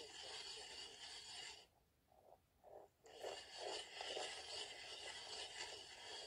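Hand-cranked ice auger boring into lake ice: a faint scraping and grinding as the blades cut with each turn of the crank. The sound nearly cuts out for a moment about two seconds in, then comes back.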